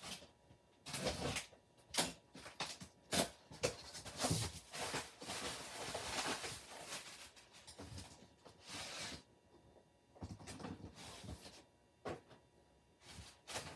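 Cardboard box and toy packaging being handled and opened: a string of knocks and clicks, with a longer stretch of rustling and scraping in the middle.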